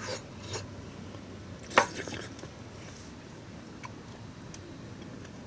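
A few sharp clinks and knocks of utensils against a cooking pot, the loudest about two seconds in, with lighter ones before and after.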